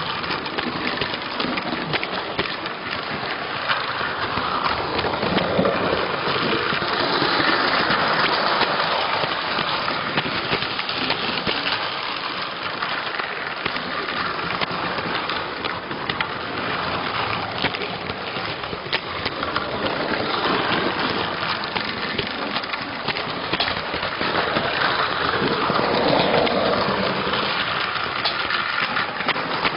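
Electrotren model train running on its track, heard close up from on board: a steady rattle of small wheels on the rails with many fine clicks, swelling and easing in level.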